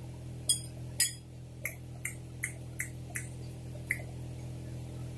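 Eating sounds: a run of about eight short, sharp clicks over the first four seconds, two to three a second, over a steady low hum.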